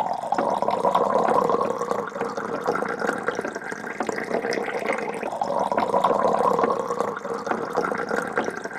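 Liquid pouring in a steady stream, with a continuous splashing, bubbling texture.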